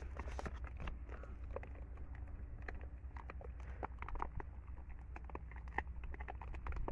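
Baboons picking through gravel and food on the ground: scattered small clicks and crunches of pebbles and bits of food, over a steady low rumble.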